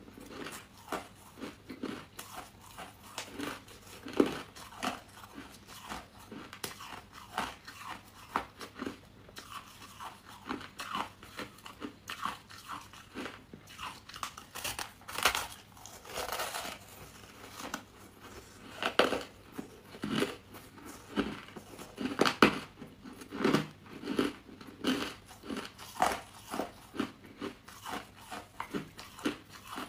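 Close-up biting and chewing of crunchy buckwheat chunks: a steady run of irregular crisp crunches, with a few louder bites midway.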